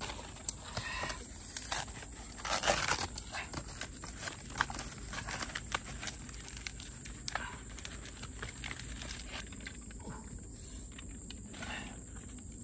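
Dry wood and bark being broken and handled by hand at a small cooking fire: scattered snaps, cracks and rustles, the loudest cluster about two and a half seconds in. A steady high-pitched tone runs underneath.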